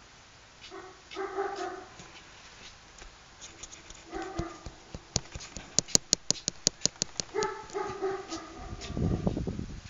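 A dog barking: three short bursts, each a pitched call of a fraction of a second. Between the second and third bursts comes a quick run of about a dozen sharp clicks, roughly six a second.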